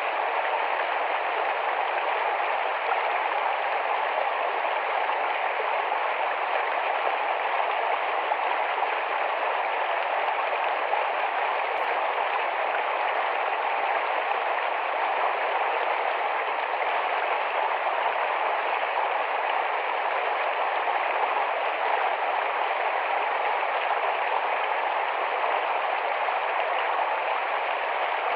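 Rapid shallow forest stream flowing, a steady, unbroken rush of water.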